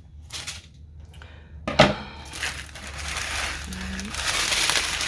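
Small plastic bags of diamond-painting drills crinkling as they are handled. A few light ticks come first, then one sharp click just before two seconds in, after which the crinkling grows louder and runs on.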